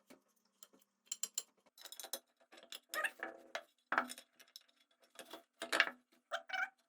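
Irregular metallic clicks and clinks as the scooter's kick-start shaft is handled and worked in its newly fitted bushing, checking that the play is gone.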